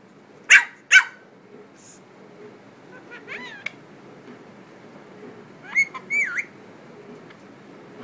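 A Japanese Chin puppy gives two sharp yapping barks about half a second apart. A few seconds later an African ringneck parakeet makes short, wavering whistled chirps, a pair of them near the middle.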